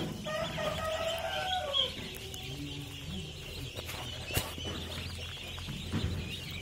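A brood of Pekin ducklings peeping continuously in a high, dense chorus. In the first two seconds a lower, drawn-out bird call falls in pitch at its end, and there are two sharp clicks around the middle.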